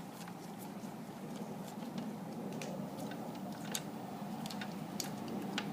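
A few light, irregular clicks of a hand tool working a bolt loose on a motorcycle fairing, over a steady low hum.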